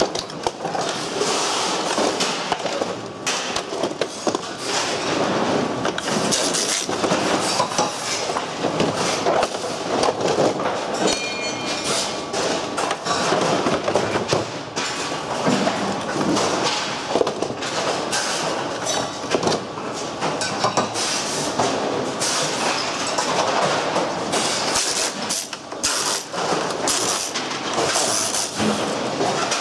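Loose screws rattling inside an upturned plastic pachinko machine frame as it is shaken over a plastic bin, with screws clattering down onto the bin floor: a loud, continuous clatter of small clicks and knocks.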